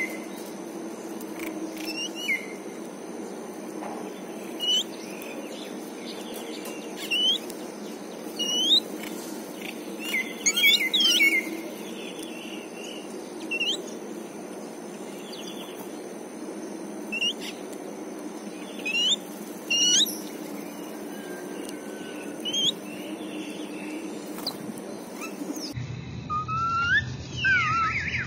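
Babblers calling: short, sharp, rising chirps every second or two, with a quick run of calls about ten seconds in, over a steady low hum. Near the end the sound cuts abruptly to a different recording with longer sliding calls.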